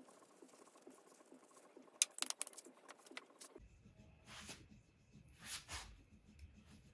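Faint handling of small metal motorcycle wheel parts: a quick cluster of light clicks about two seconds in, then a few short rubbing sounds, as the front wheel spacers are cleaned.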